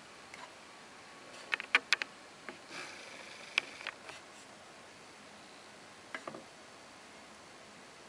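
Handling noise from a stainless steel wristwatch: scattered sharp clicks and taps, a quick run of them about a second and a half in, a few more around three and a half seconds and a pair near six seconds, over a steady low hiss.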